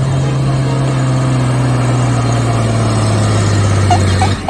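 Heavy truck engine running steadily at a low, even hum, then cutting off near the end. A few short rising chirps sound just before it stops.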